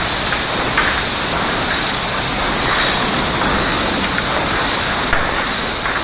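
Sawmill board line running: chain conveyors carrying sawn boards make a steady loud machine noise, with a brief knock about a second in and another near the end.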